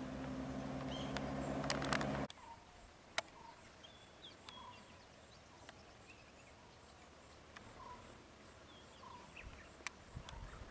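A vehicle engine idles with a steady hum, cut off abruptly about two seconds in. Then comes a quiet outdoor background with a bird giving short chirps about once a second.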